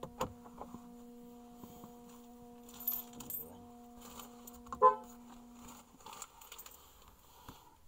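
A non-woven fabric shopping bag rustling as it is handled, with small clicks and a brief loud ringing clink about five seconds in, over a steady hum in the car cabin that stops about six seconds in.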